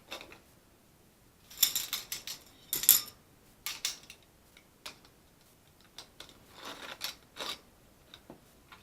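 Objects being handled and packed: a run of scattered rustles and light clacks, loudest about three seconds in.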